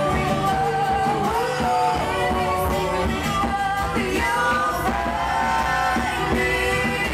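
Folk-rock band playing live: strummed acoustic guitars, keyboard and drums, with sung vocals held over them.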